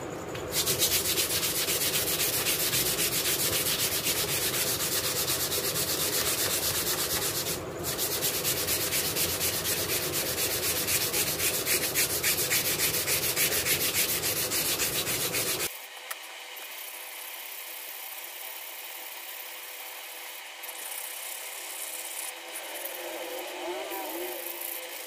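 Sandpaper rubbing over a cricket bat's willow blade: a steady, rasping scrape that stops about two thirds of the way through, leaving much quieter background noise.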